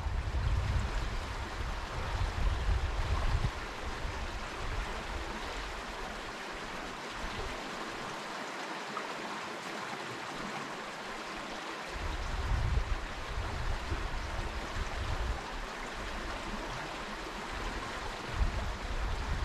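Fast mountain creek rushing steadily over rocks, with bouts of low rumble in the first few seconds and again from about twelve seconds in.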